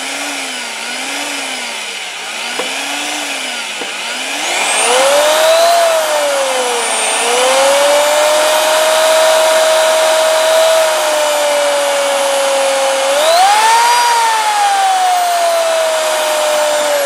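Handheld electric drill running, its bit boring into a spiked steel tee-nut anchor in a wooden pinball playfield to drill out the stuck screw. The motor whine starts slow and wavering, climbs sharply in pitch about four seconds in, then holds high, with a brief dip and a further rise and fall near the end.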